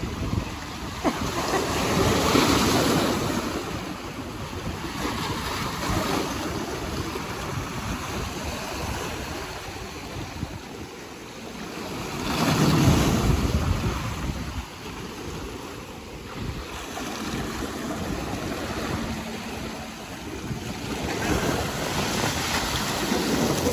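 Ocean waves breaking and washing up the shore, swelling and falling away in slow surges, loudest about two seconds in, around the middle and near the end. Wind buffets the microphone underneath.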